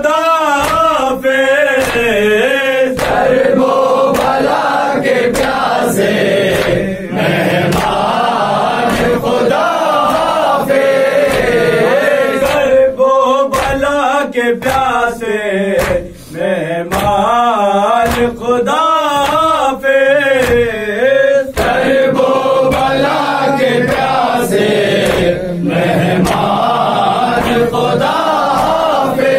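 Men chanting a nauha, a Shia mourning lament, in loud voices that waver in pitch, sung together as a group. Sharp slaps of chest-beating (matam) punctuate the chant.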